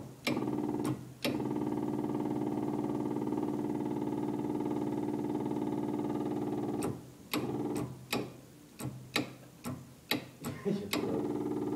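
Electric fuel pump on an old Harley-Davidson golf cart running with a steady hum, switched on by the gas pedal. It cuts out briefly twice near the start, then from about seven seconds in it stops and restarts several times in quick succession with sharp clicks before humming steadily again.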